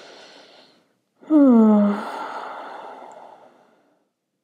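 A woman's breath in, then a loud, audible sigh falling in pitch that trails off into a long breathy exhale.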